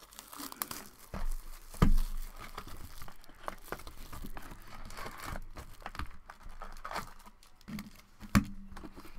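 Foil wrapper of a trading-card pack crinkling and tearing as it is opened, and the cards handled, with many small crackles. Two sharper knocks stand out, the loudest about two seconds in and another near the end.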